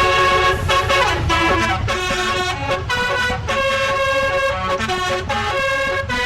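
A tour bus's basuri musical air horn playing a tune in quick, stepped notes, with a steady low rumble underneath.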